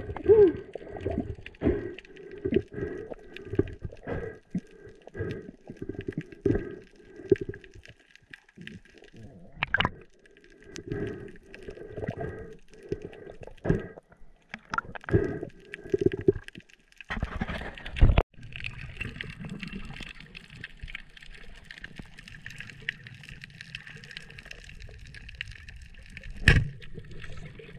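Underwater gurgling and water movement heard through an action camera's waterproof housing. It comes in quick, irregular pulses for the first half, then turns into a steadier hiss, with a sharp knock near the end.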